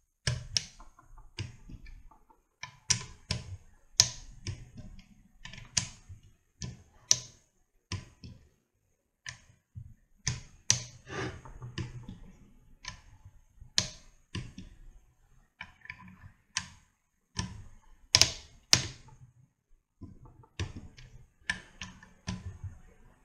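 Sharp metallic clicks from a socket wrench tightening the camshaft bearing cap bolts on a Mazda Miata 1.8 BP cylinder head during final torquing. The clicks come irregularly, about one or two a second, with a few close clusters.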